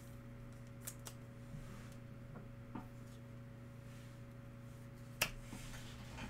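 Faint clicks and taps of trading cards being handled, with one sharper tap about five seconds in, over a steady low hum.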